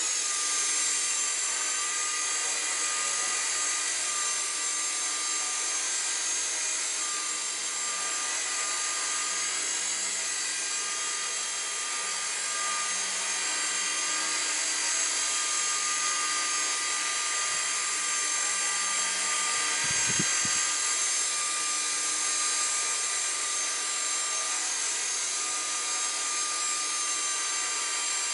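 Walkera 4#3B micro RC helicopter with its stock brushed motor running steadily, a high-pitched whine with a slight waver in pitch, after being repaired and tuned. A short low thud sounds about twenty seconds in.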